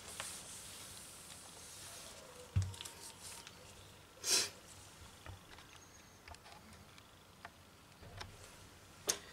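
Microfiber cloth rubbing across a laptop's screen with a soft hiss for about two seconds, then a few light knocks and clicks of handling, with one short hiss about four seconds in.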